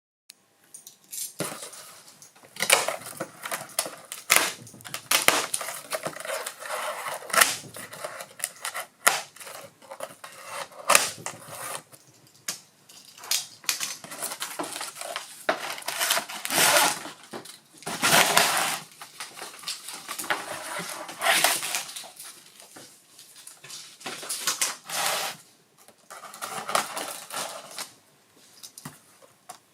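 Unboxing handling noise: irregular crinkling and rustling of packaging, with clinks and knocks from parts being handled.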